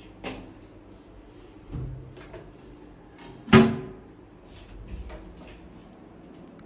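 Four knocks and bumps, the loudest about three and a half seconds in, over faint steady room noise.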